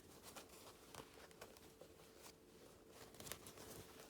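Near silence with faint, scattered rustles and small clicks of packaging and cloth being handled.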